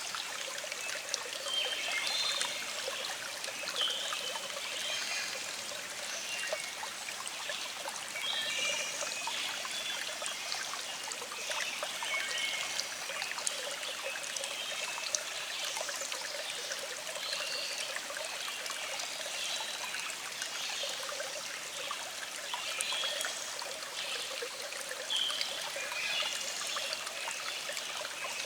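Small stream flowing over rocks, a steady trickling and burbling with little splashy gurgles.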